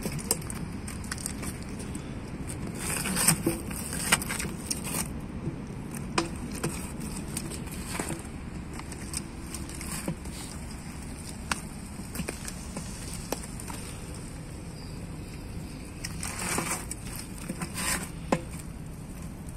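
Pit bull-type dog gnawing and tugging at an old car tyre: scattered crunches, scrapes and clicks of teeth and paws on the rubber, over a steady low background.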